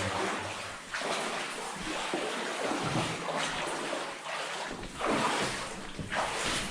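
Water sloshing and splashing as people wade through flooded mine passage in chest waders, the sound swelling with each stride.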